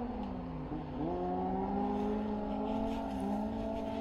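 An engine running with a steady hum. Its pitch dips about half a second in, climbs again around a second in, then holds nearly steady.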